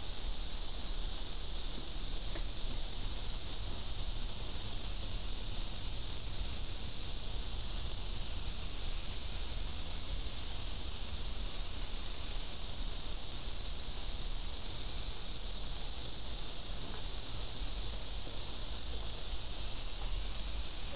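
Steady, high-pitched chorus of insects buzzing without a break, with a low rumble underneath.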